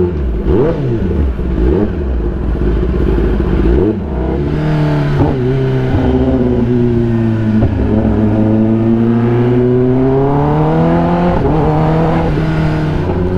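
Kawasaki ZX-10R inline-four sportbike engine through an aftermarket SC-Project exhaust, blipped in quick up-and-down revs at first, then pulling under way. About four seconds in the note changes, as at a gear change, and the engine then pulls with a slowly rising and falling pitch.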